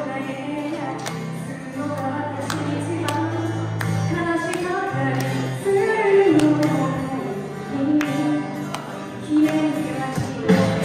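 Live band music: a woman singing with acoustic guitars, electric bass and keyboard, over a steady beat.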